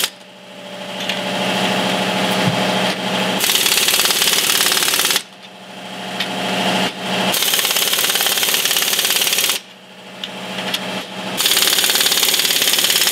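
Impact wrench running down the U-bolt nuts on a leaf-spring plate, three times over. Each run starts as a rising whir as the nut spins down freely, then becomes loud rapid hammering as the nut seats, and stops abruptly before the next nut.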